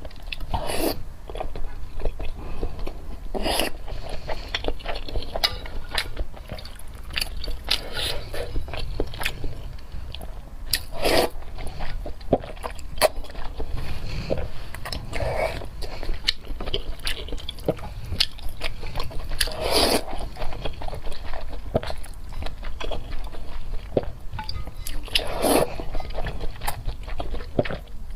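A person eating close to the microphone: irregular biting and chewing with mouth clicks, and a few longer, louder wet sounds every several seconds.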